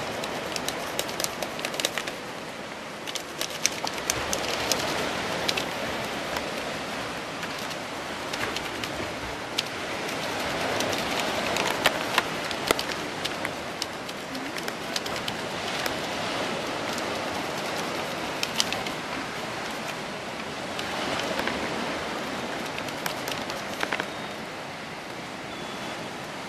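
Scratchy rubbing of a crayon over paper pressed against tree bark, a bark rubbing. It comes as a steady rasp that swells and eases in waves, dotted with many small crackling clicks.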